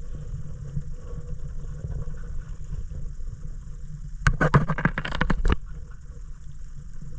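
Steady low rumble with a faint hiss, broken about four seconds in by a second of rapid clicking and clattering as a hand sifts through shells and coral rubble in shallow water.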